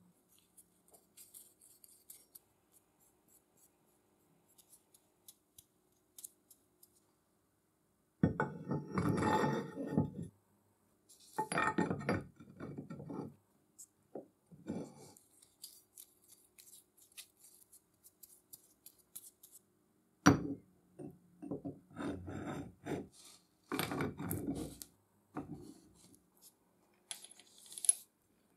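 Steel parts of a rebar cutter being fitted together by hand: scattered small metallic clicks and clinks, and a few louder stretches of steel scraping on steel as the blade is held in the body and the threaded pivot bolt is pushed through its hole.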